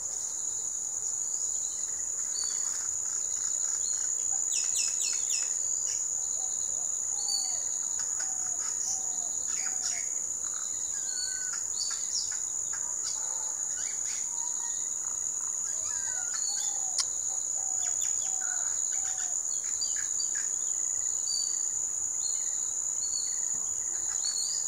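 Outdoor ambience of a steady, high-pitched insect trill, likely crickets, that holds through the whole stretch, with scattered short bird chirps and calls over it, some coming in quick little series.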